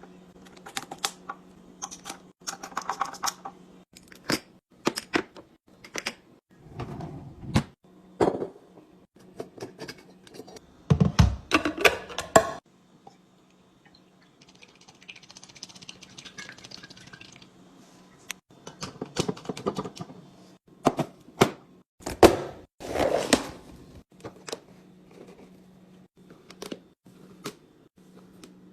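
Clicks, taps and knocks of food packages and plastic containers being handled and set down while restocking a fridge, with a few heavier thuds and stretches of rustling. A steady low hum runs underneath.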